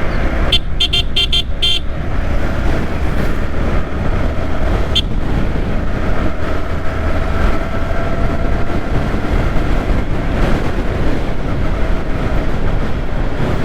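Yamaha R15 V3 motorcycle riding in traffic: steady engine and road noise throughout. About half a second in, a rapid string of about six short high horn toots sounds, and another short toot comes around five seconds.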